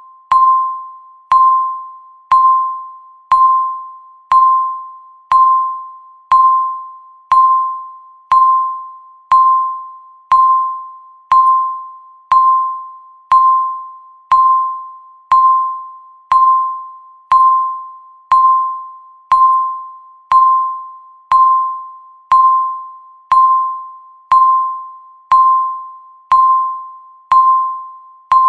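Countdown timer beep: a single pitched electronic tone sounding once every second, each with a sharp start that fades away before the next.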